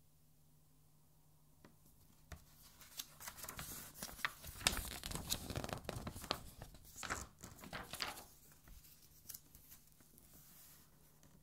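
Pages of a large art album being flipped several at a time, a quick run of paper rustling and flapping in the middle, loudest about five seconds in, with a few lighter page touches before and after.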